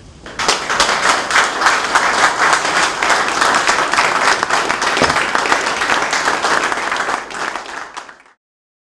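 Audience applauding, many people clapping at once; it cuts off suddenly near the end.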